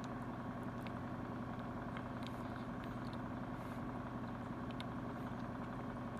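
A steady low mechanical hum, like a motor running, with faint scattered clicks over it.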